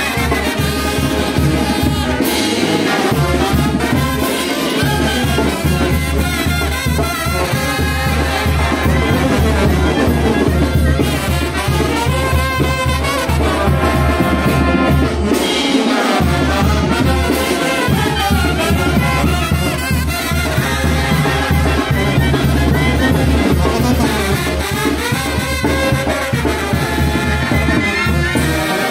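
Mexican brass band (banda de viento) playing: trumpets and trombones over a deep bass line and a steady beat.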